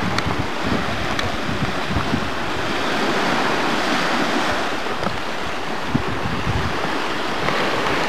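Steady rush of wind over open sea, with gusts buffeting the microphone in an uneven low rumble.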